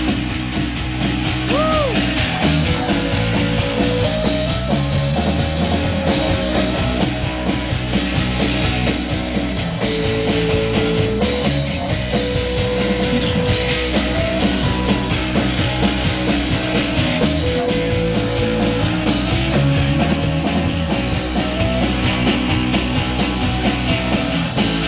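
Live rock band playing an instrumental passage: electric guitars and a drum kit keeping a steady beat.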